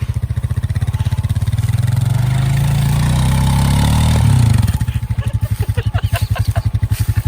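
Honda Rancher 420 ATV's single-cylinder engine revving under load as the ATV pulls through mud. It climbs steadily in pitch for about three seconds, then drops back sharply past the middle to a lower, pulsing speed.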